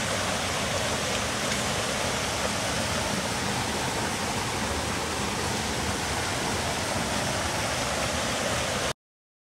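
River water rushing over a small cascade into a rocky pool, a steady even rush that cuts off abruptly near the end.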